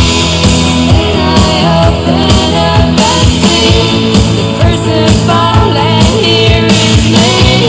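Rock music with a steady drum beat, bass and a singing voice.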